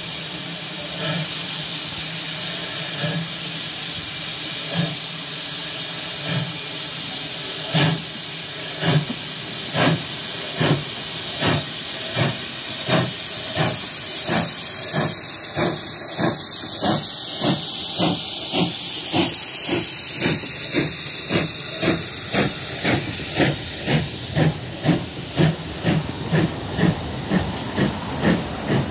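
GWR 5700 class pannier tank steam locomotive No. 7754 pulling away with its train: sharp exhaust chuffs, slow at first and quickening to about two a second, over a steady hiss of escaping steam. The beats grow louder as the engine comes closer and passes.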